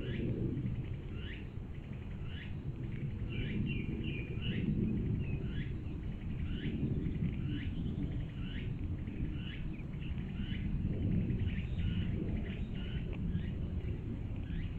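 A bird calling over and over: short notes that slide downward, about one a second, over a low, uneven rumble.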